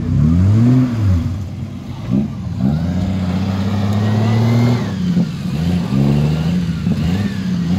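Off-road 4x4's engine revving under load. The revs rise and fall within the first second, climb again about two seconds in and hold high for a couple of seconds, then drop and come back in short blips.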